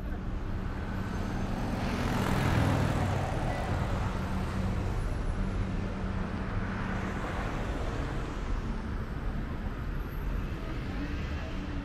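Road traffic on a busy boulevard, with a steady low engine hum underneath. One vehicle passes close about two seconds in, and another a little past the middle.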